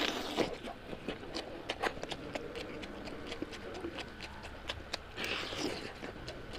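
Eating sounds of a person chewing rice and curry: irregular wet smacking and chewing clicks, several a second.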